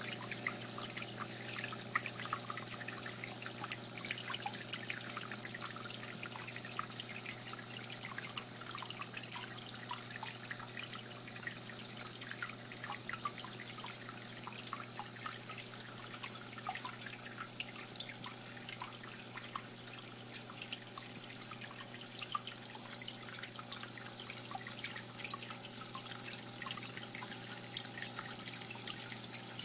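Water trickling and dripping steadily in a planted terrarium, many small drips over a continuous trickle, with a low steady hum underneath.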